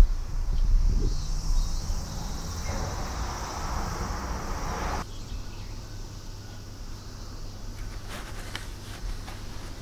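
Steady high drone of insects outside, over a low room hum, with a sharp thump right at the start. About halfway the background changes abruptly to a quieter hum with a few faint clicks.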